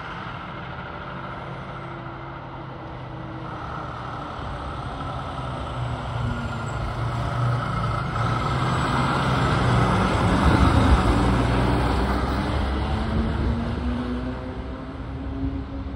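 Fire engine's engine approaching, passing close by and pulling away, loudest about two-thirds of the way through.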